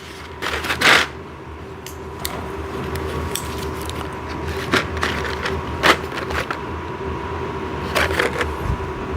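Office chair parts and hardware being handled during assembly: scattered knocks, clicks and scrapes, a handful of separate ones, over a steady low hum.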